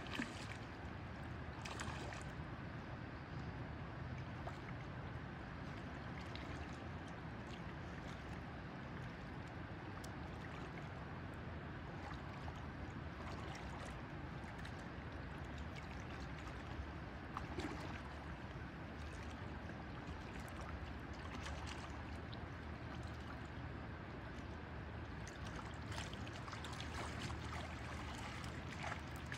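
Shallow river flowing steadily over stones, with a few brief splashes in the water, most of them near the start and toward the end.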